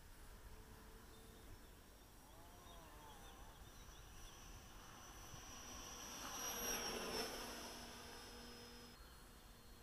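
Electric ducted fan of a small RC Mirage jet (a 12-blade 64 mm rotor on a brushless motor) giving a thin, high-pitched whine that swells to its loudest about seven seconds in, dipping slightly in pitch as the jet passes, then fading.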